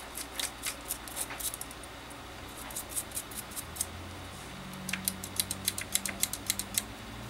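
Toothbrush bristles scrubbing a cordless drill's parts clean, a quick series of short scratchy strokes in bursts, densest near the end.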